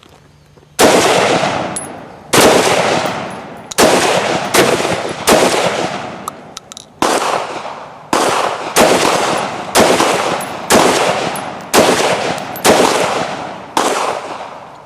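Rapid gunfire: about thirteen shots, roughly one a second at uneven spacing, each with a long echoing tail.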